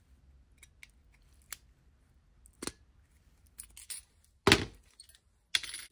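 Scattered small clicks and knocks of mini locking pliers and a plastic soldering-iron housing being handled, with a louder knock about four and a half seconds in and a short scrape near the end.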